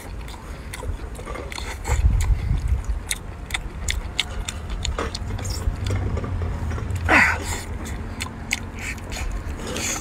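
Close-up eating sounds of a man sucking and chewing shellfish meat: irregular wet clicks and smacks of lips and teeth. A louder falling-pitched sound comes about seven seconds in.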